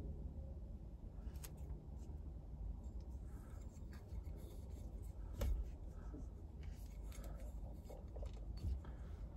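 Clear liner being peeled off the double-sided tape on an aluminum paddle shifter, with faint crinkling and scattered small clicks, and one sharper tick about five and a half seconds in, over a steady low rumble.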